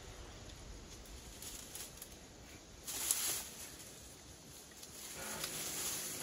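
Leaves and branches rustling and scraping as cut brush is pulled through the undergrowth, in two bursts: a short one about three seconds in and a longer one near the end.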